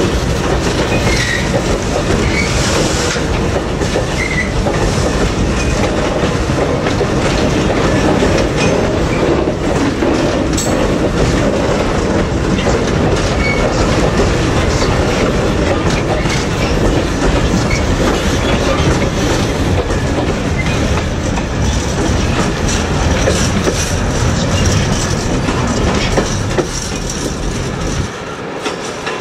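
Long rake of loaded engineering hopper wagons rolling past at low speed, wheels rumbling and clattering over the rail joints, with some high-pitched wheel squeal. The noise drops off near the end as the last wagon passes.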